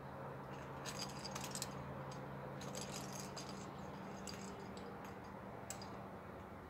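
Metal climbing gear such as carabiners and quickdraws clinking and jangling in scattered short clusters, over a steady low hum.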